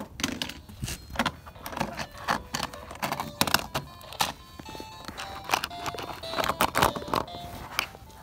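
A rapid, irregular run of sharp plastic knocks and clatter, a small plastic handheld game console being banged about on a hard floor, with background music playing underneath.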